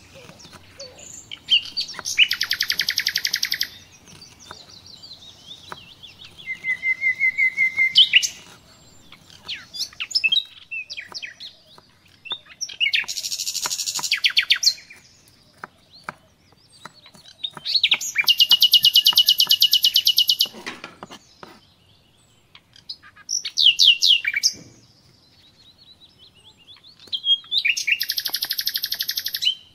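A songbird sings close by in loud bursts of very fast, high trills a few seconds apart, with one rising whistle among them. Faint knife taps on a wooden cutting board fall between the bursts.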